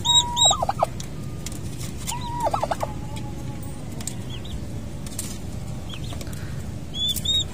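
Domestic turkey poults peeping in quick runs of three or four short, high chirps at the start and again near the end. Between them the turkey hen twice gives a short call to her brood that holds one pitch and then drops away in a few quick strokes.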